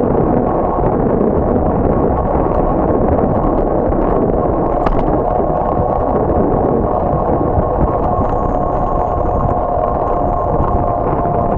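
Steady wind and road noise on the microphone of a bicycle-mounted camera while riding on pavement. A faint steady whine comes in about halfway through.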